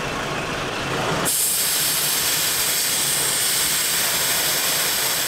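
Air hissing steadily out of an off-road tyre's valve as it is deflated for a dirt road. The hiss gets louder and sharper about a second in.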